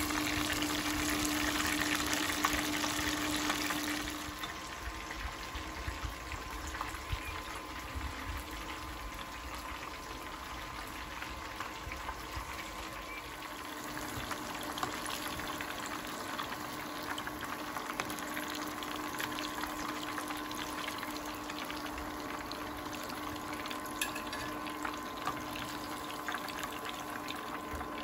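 Hot oil sizzling and crackling around battered chicken pieces and sage leaves deep-frying in a pan, louder for the first few seconds, easing off, then building again about halfway through. A steady faint hum runs underneath, with a few light clicks from metal tongs near the end.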